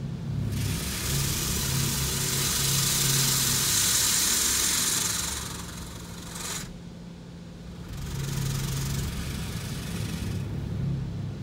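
Mark VII touchless car wash spraying water over the car, heard from inside the cabin: a loud hiss comes on about half a second in, cuts off sharply after about six seconds, and returns for about two seconds near the end, over a steady low hum.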